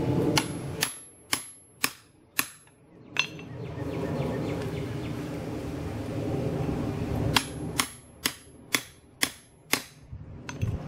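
Hand hammer striking a chisel held against a hot steel bar on an anvil block: two runs of sharp metal-on-metal blows, about two a second, each with a brief high ring. A steady low noise fills the pause between the runs.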